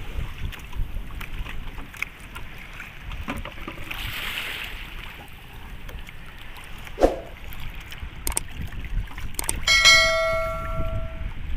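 Small wooden outrigger boat moving through shallow water with its engine off: wind rumble on the microphone, water sloshing and knocks against the hull. About ten seconds in, a metal object is struck and rings with a bell-like tone that dies away over a second or so.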